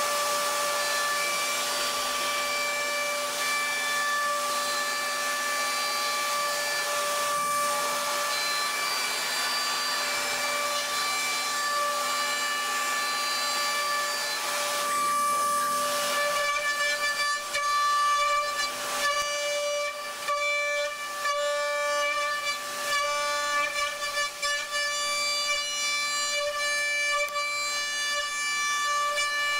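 Datron high-speed CNC milling machine cutting a metal block: the spindle whines at a steady pitch over a hiss of cutting. From about halfway the sound pulses and breaks up as the end mill moves in and out of the cut.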